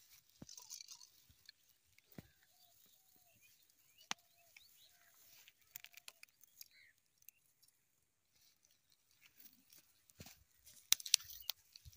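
Faint, scattered rustling and clicks of an orange carp being laid on grass and handled while the hook is worked out of its mouth, with a burst of louder rustling and clicks near the end.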